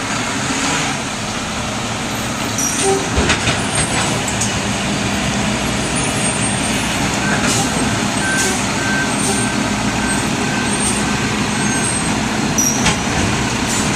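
Automated side-loading recycling truck's diesel engine running as it backs up, with a few short hisses of air and, from about halfway through, a run of evenly spaced reversing beeps.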